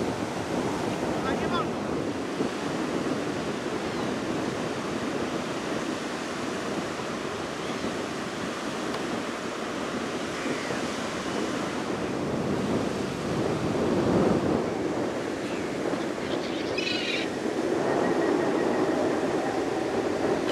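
Baltic Sea surf washing steadily onto a wide sandy beach, with a few brief high-pitched bird calls, one about three-quarters of the way through.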